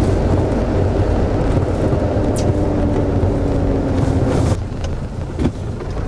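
Heavy truck's diesel engine pulling up an incline, its note sinking slowly as the revs fall. It drops in level about four and a half seconds in, as for a gear change on the climb, and a sharp click follows about a second later.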